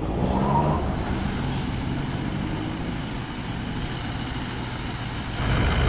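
A vehicle engine running with a steady low drone.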